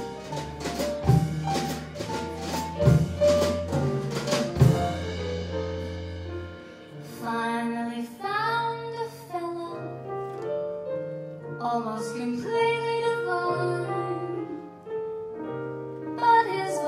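Live jazz-style band: drum kit hits, electric bass and keyboard play an intro. The drums stop about five seconds in, and about seven seconds in a woman begins singing over the keyboard.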